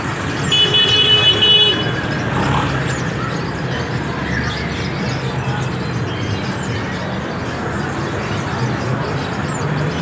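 A short vehicle horn sounding from about half a second in to under two seconds in, the loudest thing heard, over the steady din of street traffic and market noise.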